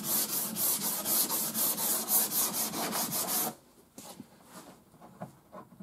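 Sandpaper rubbed by hand back and forth over a primed car body panel, a quick even rhythm of scratchy strokes, about four a second, sanding the primer up to a masking-tape line. The sanding stops abruptly about three and a half seconds in, leaving only a few faint ticks.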